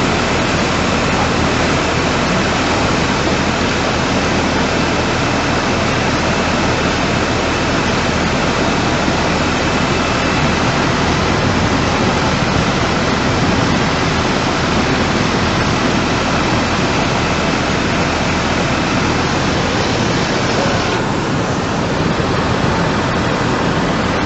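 Floodwater rushing past: a loud, steady, unbroken rush of fast-flowing water, its tone shifting slightly near the end.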